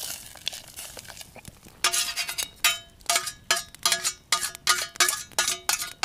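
Metal spoon knocking and scraping against metal camp cookware, tapping the last of the tomato paste and butter out of its vessel into the pot. Soft scraping at first, then, about two seconds in, a run of ringing metallic knocks, about three or four a second, each with the same ringing pitch.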